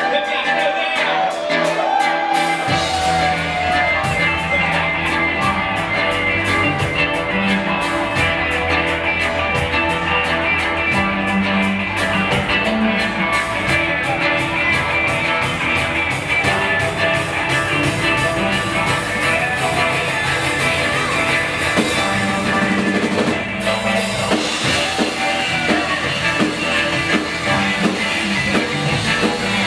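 Live rock band playing, with drum kit, guitar and bass; the low end and steady drum beat come in about two and a half seconds in, and the music briefly drops out about three quarters of the way through.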